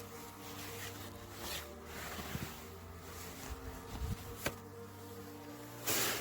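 Snow being cleared by hand with a shovel: a few soft scrapes and swishes, the loudest a short rush near the end, over a steady low buzzing hum.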